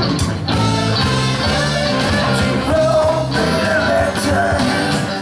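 Rock and roll music: a band playing with guitar and a steady beat, in a gap between sung lines of the song.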